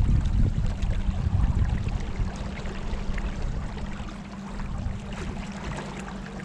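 Rushing water and wind buffeting the microphone on a boat moving along the river, a steady low rumble that eases off somewhat in the second half.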